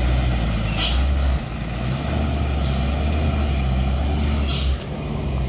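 Heavy diesel dump truck engine running with a deep steady rumble, broken by several short air-brake hisses: two about a second in, one near the middle and one near the end.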